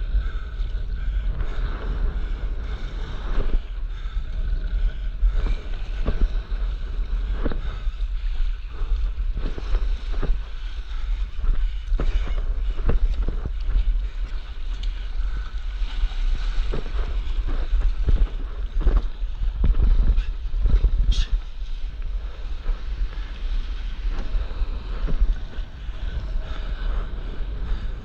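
Wind buffeting the microphone of a camera mounted on a stand-up paddleboard, a steady low rumble, with water sloshing and slapping irregularly against the board. One sharp high click about three-quarters of the way through.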